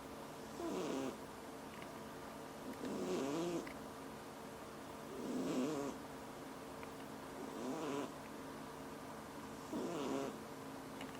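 A sleeping pet snoring, five snores about two and a half seconds apart. Each snore is a short, wavering, whistly wheeze with a breathy hiss.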